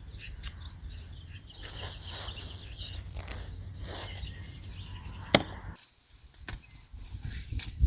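Weeding by hand: sharp knocks and scrapes of a garden tool in soil and weeds being pulled, with one loud knock about five seconds in. Birds chirp faintly in the background early on.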